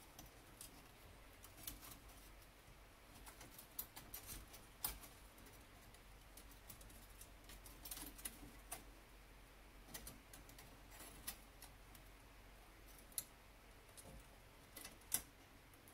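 Faint, irregular clicks and taps as a wreath of wooden clothespins on a wire ring is handled, the clothespins knocking against each other and the wire.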